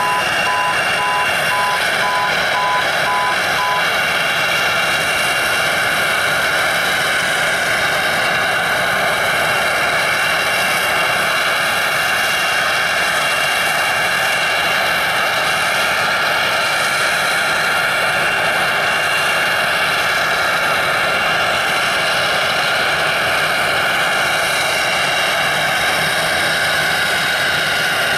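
Twin rear-mounted turbofan engines of a Bombardier CRJ-200 regional jet whining steadily while it taxis, with a repeating electronic beep in the first few seconds. Near the end the engine whine shifts pitch.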